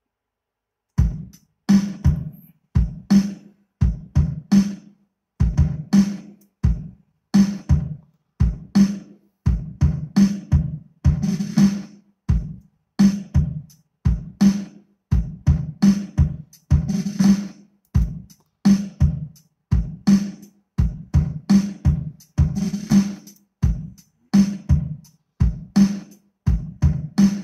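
Programmed hip-hop drum beat from an Abbey Road 80s drum kit sample, played back in Maschine. Kick and snare hits repeat in a steady loop, starting about a second in.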